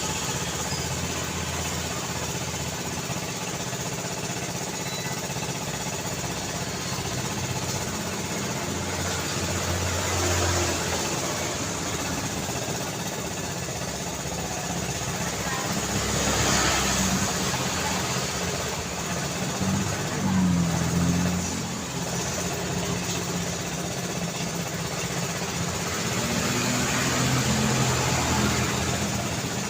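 Road traffic noise: a steady wash of engines and tyres, with vehicles passing close several times and swelling louder as they go by, around a third and halfway through and again near the end.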